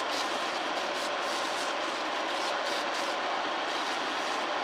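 Homemade wood lathe running steadily with a maçaranduba handle spinning on it, while sandpaper is held against the turning wood.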